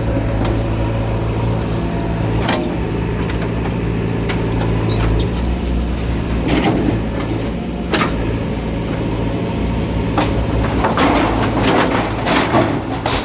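Bulldozer's diesel engine running, with a series of sharp knocks and a burst of clattering near the end as the machine breaks up the structure.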